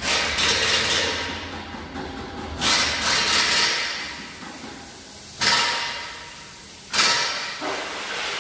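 Car repair workshop noise: four sudden bursts of noise, each fading away over about a second.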